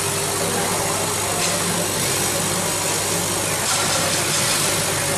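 Laser cutting machine running as its head cuts clear acrylic sheet: a steady mechanical hum with an even hiss.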